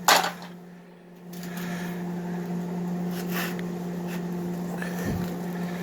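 A single sharp metallic strike with a brief ring, then about a second later a steady machine hum starts up and runs evenly.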